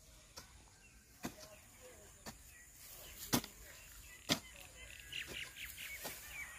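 Hand hoe chopping into dry, crumbly soil, about one strike a second, the loudest two in the middle. Birds chirp in the background, more busily near the end.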